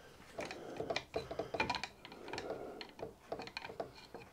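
Irregular light clicks and knocks of metal being handled: a stainless steel plate and a hand clamp being set against a milling machine vise.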